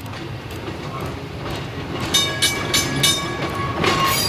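Los Angeles Railway streetcar rolling slowly on curved track with a low rumble. About halfway through, a bell starts ringing in quick strokes, about three a second.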